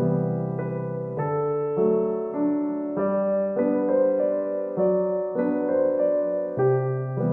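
Background music: a keyboard playing soft sustained chords and a slow melody, the notes changing about every half second to a second.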